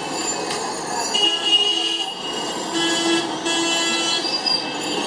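Street traffic with several vehicle horns honking at different pitches, short toots and longer blasts overlapping, over a steady hum of traffic.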